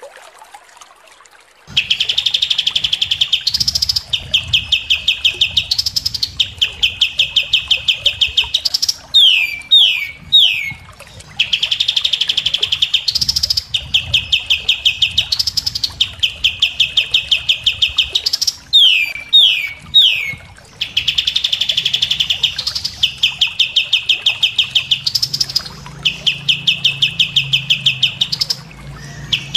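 Looped songbird recording of rapid, high-pitched trilled rolls, each lasting one to two seconds, broken twice by a run of three quick downslurred whistles. It starts almost two seconds in, and the whole phrase repeats about every nine and a half seconds, as in a masteran tutor track for training captive songbirds.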